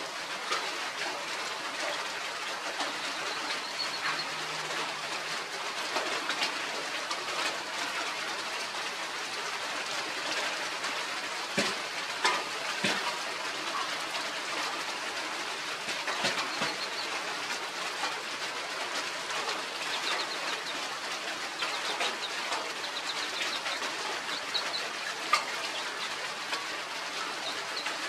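Outdoor background: a steady hiss with scattered small clicks, and short runs of high bird chirps now and then, more of them near the end.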